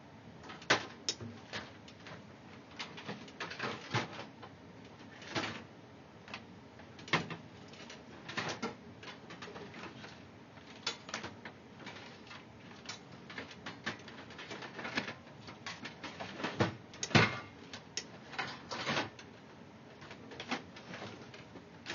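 Irregular clicks, knocks and rustling of hands handling objects on a workbench, with a dozen or so sharp knocks scattered through and the loudest about three-quarters of the way in.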